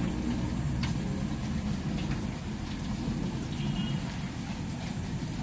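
Steady background noise, mostly a low rumble, with scattered light ticks and taps through it.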